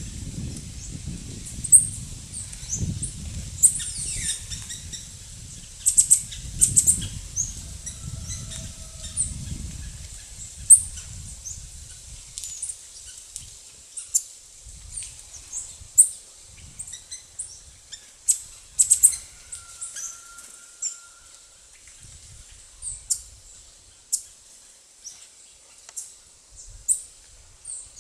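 Ingram's squirrel gnawing a hard jerivá (queen palm) nut, its teeth rasping on the shell in short, sharp, irregular clicks and scrapes. A low rumble underlies the first ten seconds or so.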